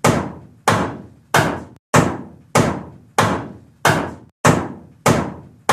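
Hammer blows on a vending machine, a cartoon sound effect repeated at an even pace, about one and a half strikes a second. Each strike is sharp and rings briefly, fading before the next.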